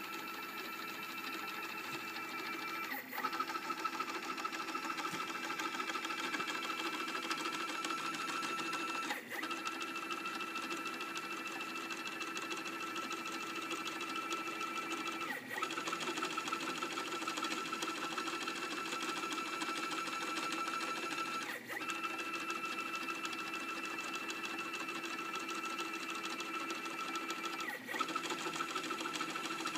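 Stepper motor driving a single-axis slide's lead screw: a steady machine whine made of a few held tones. It breaks off with a brief click about every six seconds as the slide stops and reverses, five times in all.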